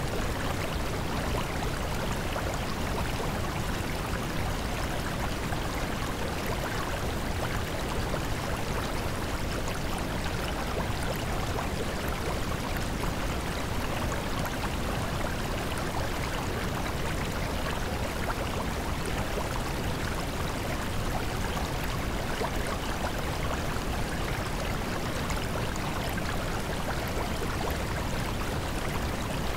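Steady, unchanging rushing noise like running water in a stream, with no speech or music over it.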